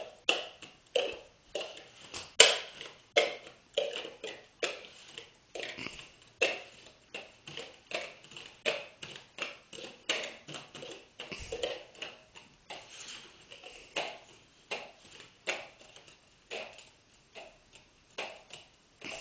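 Plastic cups being set down one after another on a wooden table and on each other as a cup pyramid is built: a quick, irregular run of light clicks and taps, about two a second.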